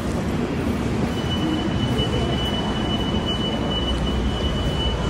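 Metro train rumbling through the station, with a steady high-pitched squeal that starts about a second in and holds.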